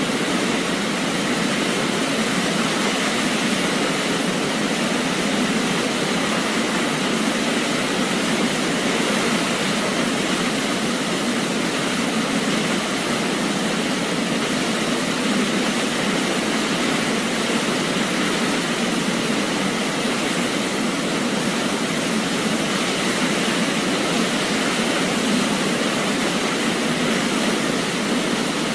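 Waterfall: a steady, even rush of falling water with little deep rumble, unchanging throughout.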